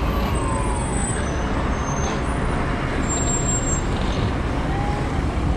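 Road traffic with a city bus turning close by, over a steady low wind rumble on the microphone of a camera riding a moving bicycle.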